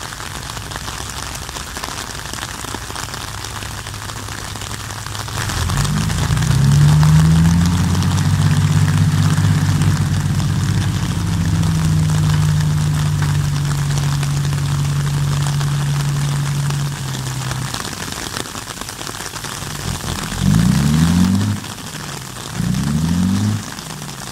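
Dump truck's diesel engine idling, then rising about six seconds in to a steady higher speed that drives the hydraulic hoist lifting the tipper bed, and dropping back after about eleven seconds. Near the end the engine is revved twice in short rising bursts.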